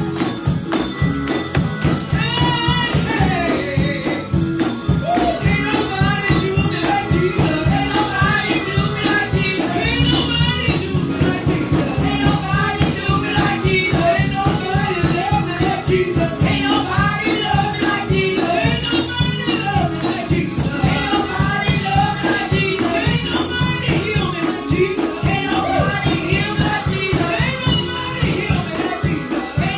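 Live gospel praise music: voices singing over a driving, steady beat, with a tambourine shaken along.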